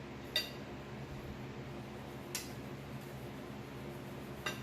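Three light clinks of tableware, one near the start, one in the middle and one near the end, each ringing briefly, over a faint steady low hum.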